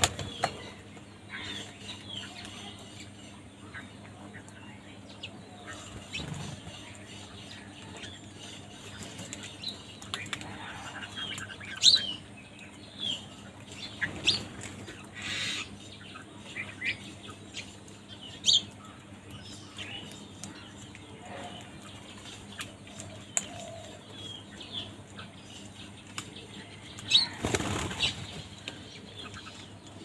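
House crows feeding on grain spread over concrete: wings flapping as they hop and jostle, with sharp clicks of beaks pecking the ground and a few short high chirps. A louder rush of wingbeats comes near the end.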